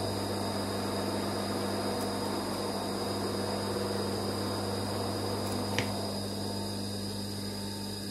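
Steady electrical hum, with one light snip of scissors about six seconds in.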